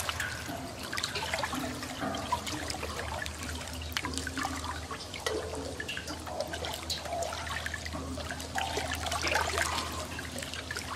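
Water pouring and gurgling down through a drain grate, with a steady wash of running water and many small bubbling splashes.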